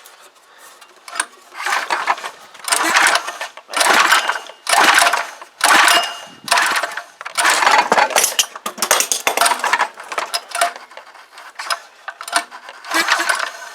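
Small petrol engine of a Clarke pressure washer being cranked on its pull-cord recoil starter, about nine quick pulls in a row, turning over without firing. This is a wet compression test with oil in the bore, typical of checking for worn piston rings.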